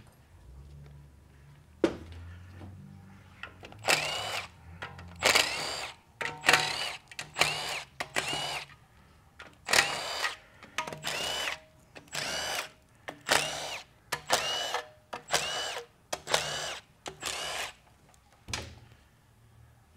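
Impact wrench spinning the oil-pan bolts out of a TH350 automatic transmission, one bolt after another. It sounds as about fifteen short bursts of roughly half a second each, with brief gaps between them.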